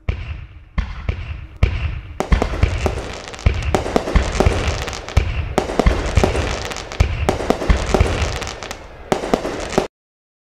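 Fireworks going off: a few separate booms, then from about two seconds in a dense run of bangs and crackling. The sound stops abruptly near the end.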